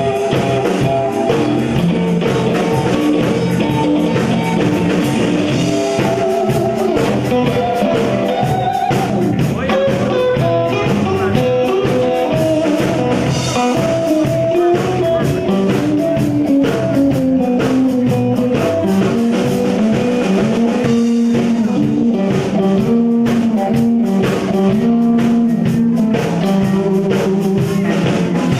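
Live rock band playing, with an electric guitar carrying the melody over a drum kit keeping a steady beat.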